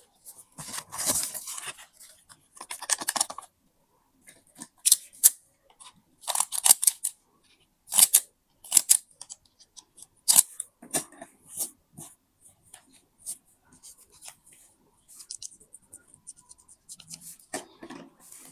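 Scissors cutting paper in short runs of crisp snips, with pauses between the runs.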